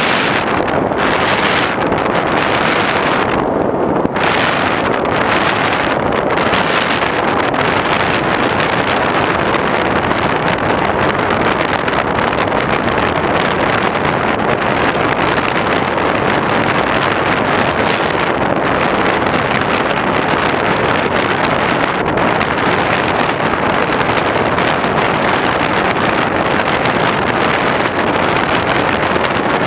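Steady, dense rush of airflow and motor-and-propeller noise from an X8 model plane in flight, heard through the GoPro mounted on it, with wind buffeting the camera's microphone.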